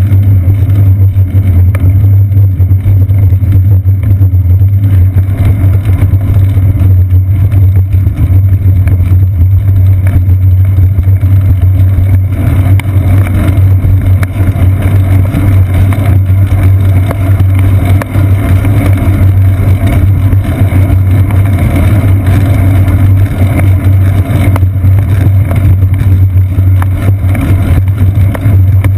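Loud, steady low rumble of a bicycle rolling along a paved path, picked up through a seat-post-mounted GoPro camera. Road vibration and wind drown out everything else.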